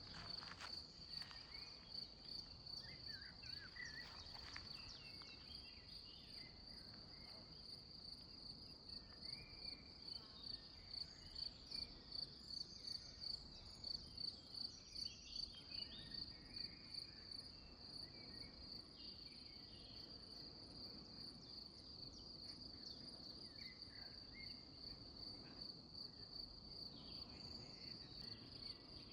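A cricket singing: a steady, evenly pulsing high trill that carries on without a break.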